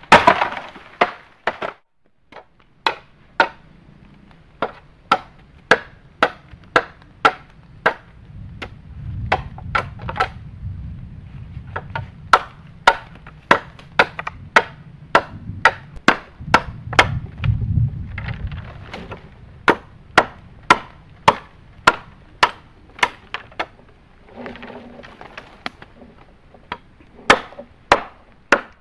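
A blade chopping into wood in a steady run of sharp strikes, a little under two a second, with brief pauses. A low rumble sits under the strikes twice in the middle.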